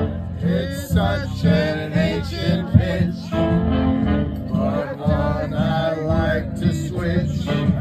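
Men singing into a handheld microphone over loud backing music, karaoke-style, with held, gliding sung notes.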